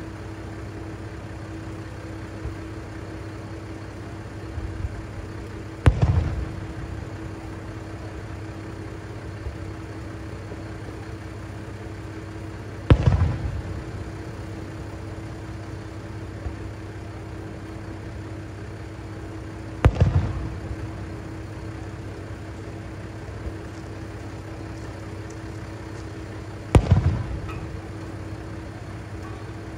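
Aerial fireworks shells bursting four times, about seven seconds apart, each a sharp bang with a rolling echo. Under them runs the steady drone of a diesel railcar's engine idling.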